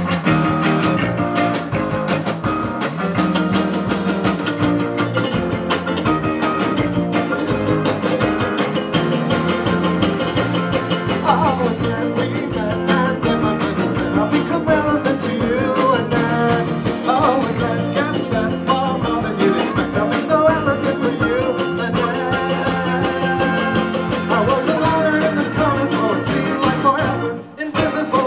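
Live indie pop band playing a song, with a steady drum beat under bass, guitar and keyboard. The music dips briefly near the end.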